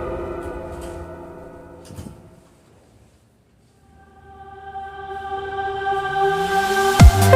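Background music: one track fades away to near silence, then a sustained choir-like chord swells up and a heavy electronic dubstep beat drops in near the end.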